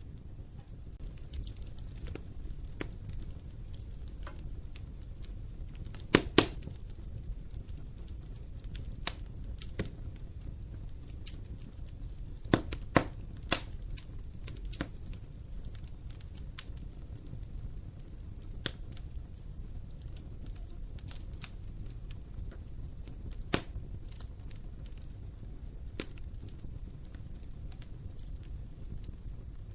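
Wood fire in a fireplace crackling: a steady low rumble of the flames with frequent small snaps and a few sharp, louder pops, twice in quick pairs about six and thirteen seconds in, and once more near twenty-four seconds.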